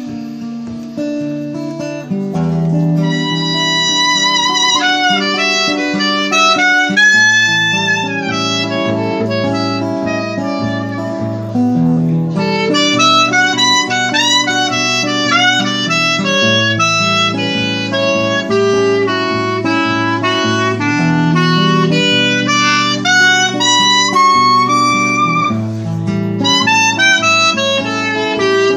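Clarinet solo with a wavering, vibrato-laden melody over strummed acoustic guitar chords. The clarinet comes in about two seconds in.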